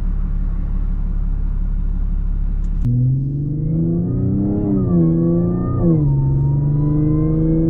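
Tuned Audi A6's engine heard from inside the cabin over steady low road rumble. About three seconds in, the engine note comes up clearly, rises, then steps down in pitch and holds steady, like easy acceleration through a gear change.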